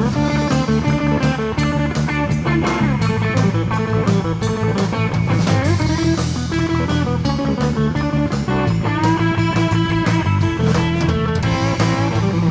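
Live blues-rock band: electric guitar playing a lead line with bent and held notes over electric bass and a steady drum beat.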